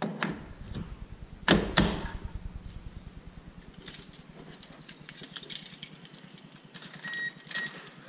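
Quick-release steering wheel hub being worked by hand: two loud sharp metallic clicks about a second and a half in, then lighter clicking and rattling, with a few more sharp clicks near the end.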